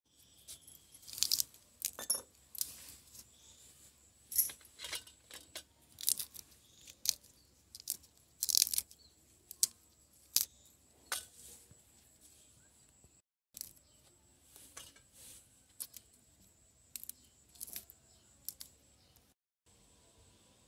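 Fresh roselle calyxes being peeled and torn apart by hand: irregular crisp snaps and crackles, loudest in the first half.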